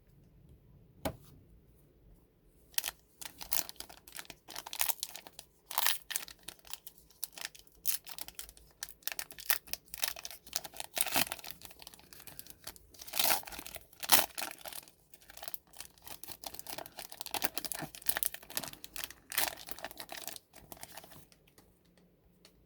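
Foil wrapper of a trading-card pack being torn open and crinkled: a long run of irregular crackling rips and rustles that starts about three seconds in.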